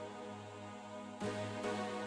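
Background music: sustained, held chords, with a new chord struck about a second in.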